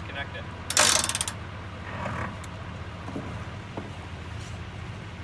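Boat-trailer winch ratchet clicking rapidly for about half a second, about a second in, with a softer mechanical rattle a second later, over the low steady hum of idling outboard motors.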